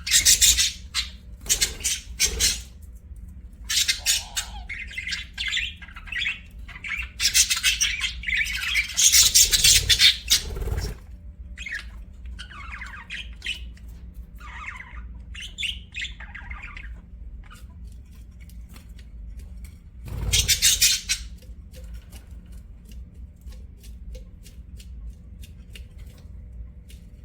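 Budgerigars chirping and squawking in irregular bursts: loud chattering at the start, a longer loud flurry about a third of the way in, and another short burst later, with softer chirps between and a quieter stretch near the end.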